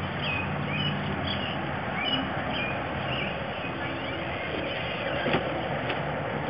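Steady rushing outdoor background noise, with a few short high chirps in the first two seconds.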